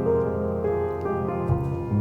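Slow, gentle background piano music, with held notes and a new note or chord about every half second.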